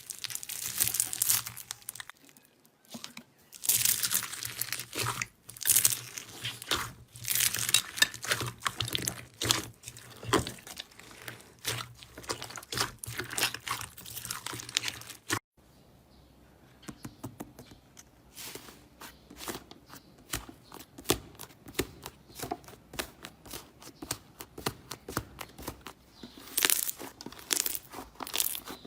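Slime being squeezed, stretched and pressed by hand, with sticky crackling and popping. An abrupt break comes about halfway through, followed by a run of quick little clicks and pops.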